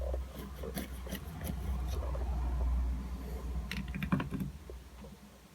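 Scattered light clicks and taps from handling a soldering iron and its station on a bench, over a low rumble that fades away near the end.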